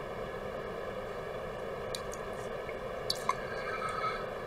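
Steady background hum with a few faint clicks and taps as a laptop logic board is shifted by hand under the microscope.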